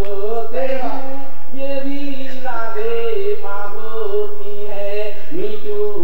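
A man singing a poem in a slow, drawn-out melody into a microphone, holding long notes and gliding between them, with a few short breaks for breath.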